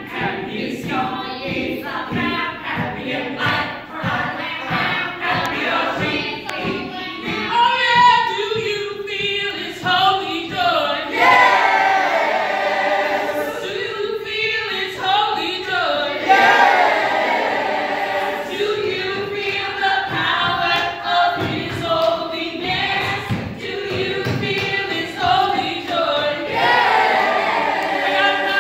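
A mixed group of teenage voices singing a gospel-style song together, unaccompanied.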